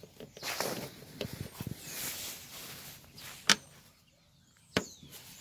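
Plastic air filter housing cover of a Toyota Yaris being handled and seated, with rustling and scraping plastic, then two sharp clicks about three and a half and five seconds in as the metal spring clips snap shut.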